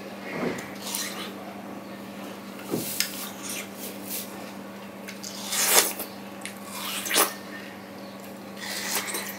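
Close-up mouth sounds of someone eating juicy watermelon: wet bites, chewing and smacking, irregular, with the loudest smacks a little past halfway and again about a second later. A steady low hum runs underneath.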